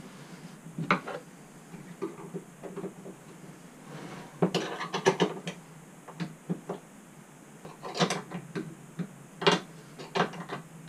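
Scattered metal clicks and clinks of a wrench tightening locking nuts onto the through-bolts of a bed lift kit's lower gas-strut bracket, with a busy flurry about four and a half seconds in and single knocks around eight and nine and a half seconds in.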